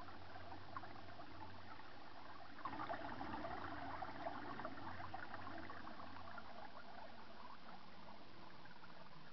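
Spring water trickling and splashing over stones as a thin rivulet, a little louder for a few seconds from about three seconds in.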